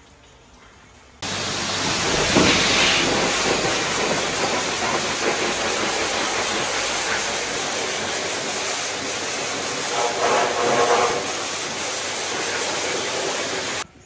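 High-pressure washer jet spraying water against a truck's cab roof and exhaust stack: a loud, steady hiss of spray that starts suddenly about a second in and cuts off abruptly near the end.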